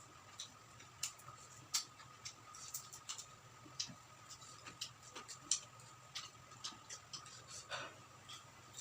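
Close-up eating sounds of crispy deep-fried quail being chewed: irregular sharp crunches and crackles, several a second, over a faint steady hum.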